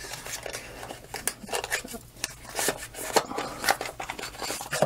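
A small cardboard box being opened and a white plastic smart-switch module slid out and turned in the hands: rustling and scraping of card with an irregular string of sharp clicks and taps of plastic.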